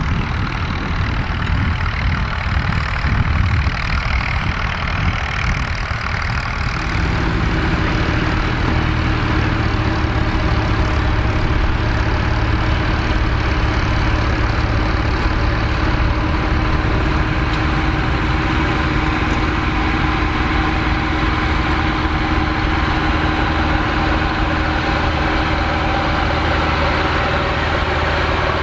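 Massey Ferguson tractor engine running under load in the field. About seven seconds in, the sound changes abruptly to a steadier engine drone with a clear, even pitch.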